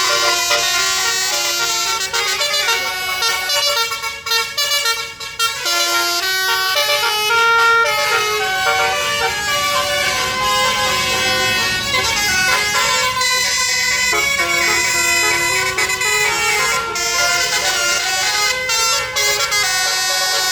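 Basuri musical air horn on a bus playing a tune: a quick run of horn notes stepping up and down in pitch, several sounding together.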